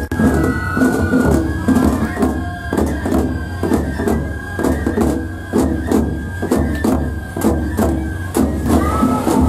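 Festival float band playing: taiko drums beaten with sticks in a steady, even rhythm under a flute holding a high melody line.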